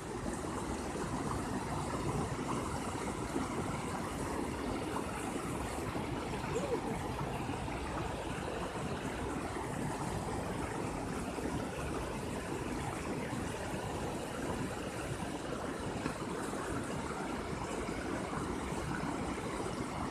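Small mountain stream rushing and splashing over rocks in little cascades: a steady rush of water that does not let up.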